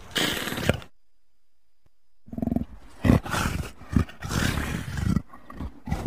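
Leopard calling: one call ends about a second in, then after a short silence a run of rough calls follows from about two seconds in to five, with a brief one near the end.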